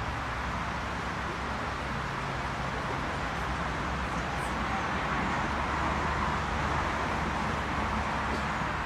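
Steady background rumble and hiss of distant road traffic, swelling a little past the middle.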